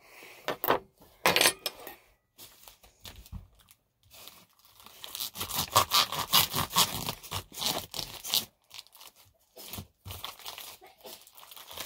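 Plastic wrapper of a farmer's sausage crinkling and tearing in irregular bursts as it is cut and pulled open with a serrated knife, busiest about five to eight seconds in.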